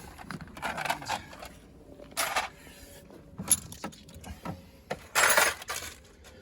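Clattering and rustling of small plastic parts being handled in a car boot, in several short bursts, the longest and loudest about five seconds in.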